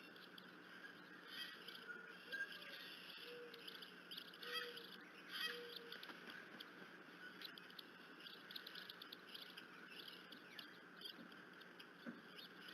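Faint outdoor ambience with a run of four short, low, hollow notes a little under a second apart, a few seconds in. These match the weird 'plopping' noises on the nest cam whose source is unknown. Faint small-bird or insect chatter and ticking run underneath.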